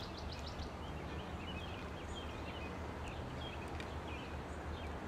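Norfolk Southern EMD diesel locomotive's engine running with a steady low drone as it creeps along, with birds chirping throughout.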